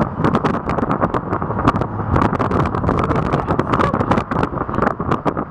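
Sport-fishing boat under way in rough sea: steady engine rumble and rushing water, with wind buffeting the microphone. Many irregular sharp clicks and taps sound throughout.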